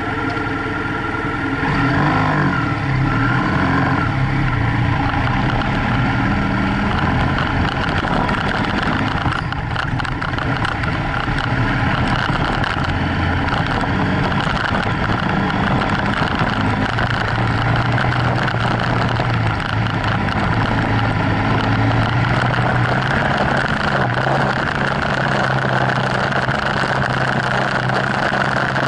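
BMW F800GS parallel-twin engine running under way on a gravel track, its revs rising about two seconds in and then holding fairly steady, with a continuous rush of wind and tyre noise.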